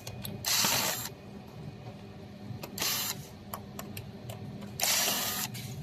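Electric screwdriver running in three short bursts about two seconds apart, driving the screws that hold a car navigation screen assembly, with small clicks of parts being handled in between.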